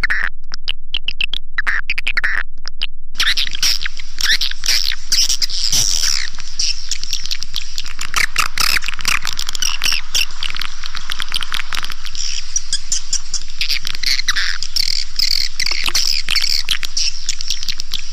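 Recorded swiftlet lure call: many swiftlets chirping and clicking in high, fast twitters. It starts as rapid spaced pulses with short chirps, then about three seconds in becomes a dense, continuous chatter.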